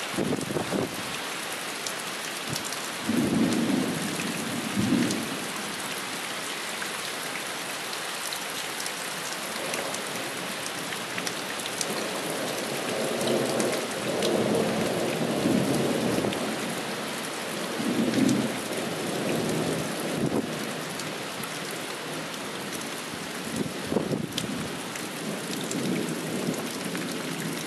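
Steady downpour of rain, with several rumbles of thunder rolling over it; the longest rolls for about five seconds in the middle.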